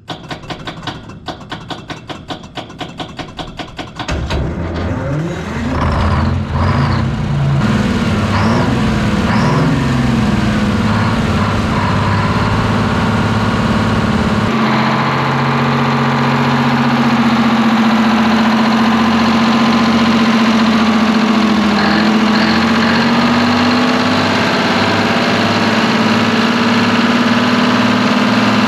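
Twin-turbo Detroit Diesel 12V71 two-stroke V12 diesel cranking over for about four seconds, catching and revving up, then settling to steady running.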